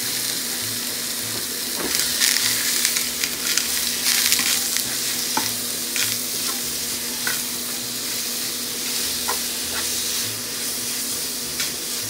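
Diced beef sizzling in oil in a nonstick frying pan, stirred and turned with a spatula that scrapes and taps against the pan now and then.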